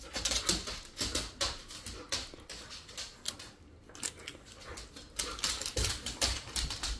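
Irregular clicks and taps of a thin plastic jar lid as a cat bats and grabs at it while it is held just above his head.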